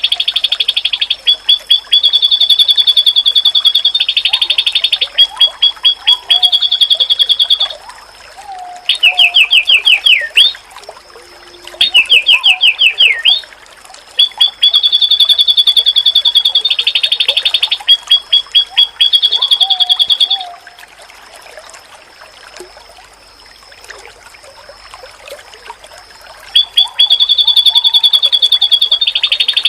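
White-eye (pleci) singing: loud, rapid high trills of quickly repeated notes in phrases of a few seconds, broken by short pauses. Around the middle come two runs of quick downward-sweeping notes. Fainter, lower chirps sound underneath throughout.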